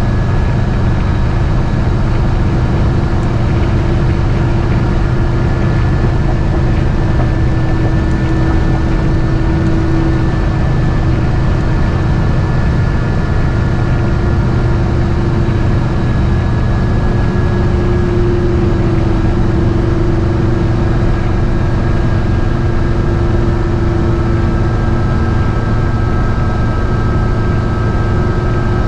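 GMC motorhome's V8 engine and road noise heard from inside the cab while driving: a steady, loud drone with a low hum and a slowly wavering mid tone that holds even throughout.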